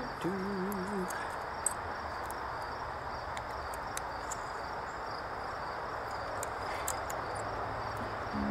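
Steady outdoor insect chirring, crickets, over a constant background hiss, with scattered light clicks of small metal pulley parts and screws being handled. A brief wavering tone sounds about half a second in.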